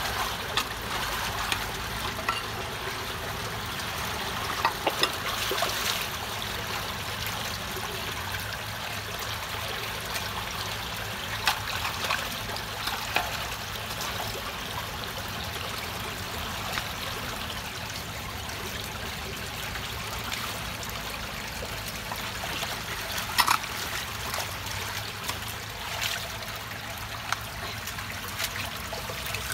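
Water rushing steadily through a partly cleared culvert opening, with a few sharp knocks and scrapes of a wooden-handled tool digging at the clog, the loudest about 23 seconds in.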